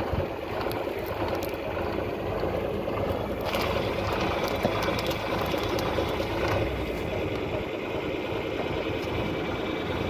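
John Deere 4240S tractor's six-cylinder diesel engine running steadily while pulling a mounted mouldboard plough through the soil, with a few short rattles from the plough's steel frame.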